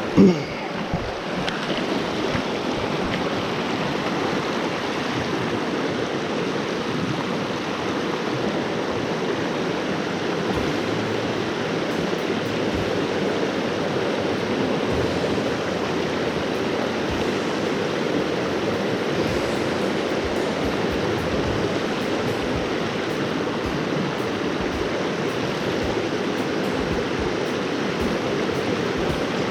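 Mountain creek rushing steadily over rocks through small rapids and pocket water.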